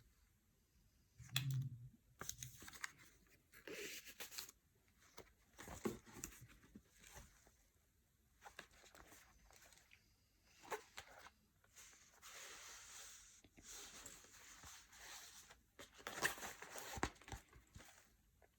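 Packaging being opened and handled: on-and-off rustling, crinkling and tearing of wrapping, with scattered small clicks and taps. The longest stretch of rustling is in the second half, and the loudest comes near the end.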